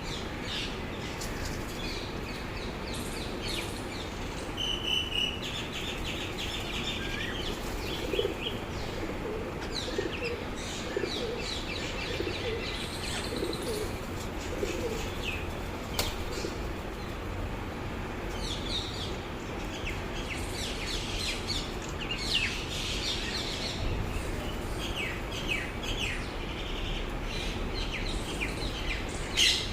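Parrots chirping and calling continuously, with pigeons cooing through the middle and wings flapping.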